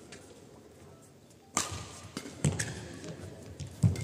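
Badminton rally: two sharp cracks of racket strings hitting a shuttlecock about a second apart, then a heavy thud of a player's footwork landing on the court near the end.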